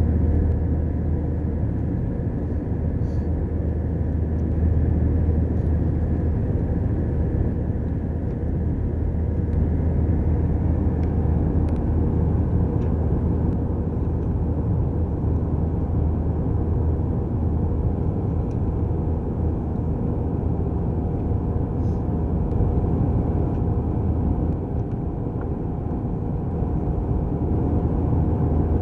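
Airbus A320 jet engines running at climb power, heard inside the cabin as a steady deep rumble and rush of air with faint steady tones humming through it.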